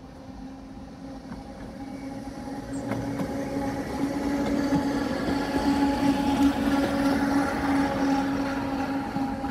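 A narrow-gauge electric heritage tram, open-top double-decker, running past on its rails: a steady hum with the noise of the wheels on the track, growing louder as it approaches and peaking as it passes close, then easing slightly.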